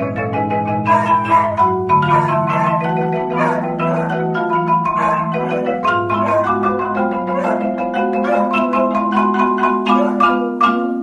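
Marimbas played with four mallets: quick runs of struck notes over held, rolled low notes, with a dog howling along.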